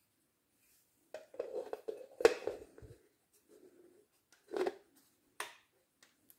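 Plastic parts of a Makita CC301D cordless glass and tile cutter being handled: clicks, rattles and knocks as the cap is fitted onto its round tank, with the loudest knock about two seconds in, another about four and a half seconds in, and a sharp click soon after.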